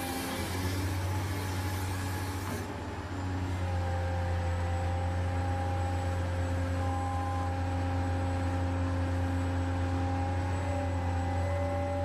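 Huina 1580 RC excavator's electric motors running with a steady hum and whine as the arm and bucket work, the whine's pitch shifting slightly as different motions start and stop. A hiss sounds over it for the first two or three seconds.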